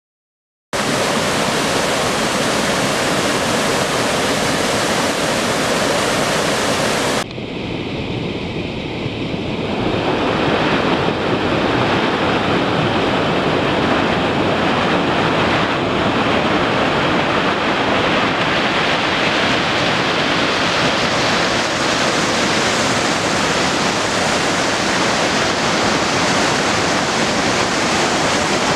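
Loud, steady rush of water in a Sierra waterfall swollen with spring runoff. It starts about a second in. About seven seconds in it drops and turns duller, then builds back to full strength.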